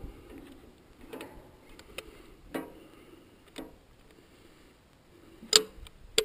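Scattered light taps and clicks from handling a tube of silicone sealant against a galvanized steel windmill blade, with one sharper knock about five and a half seconds in and another near the end.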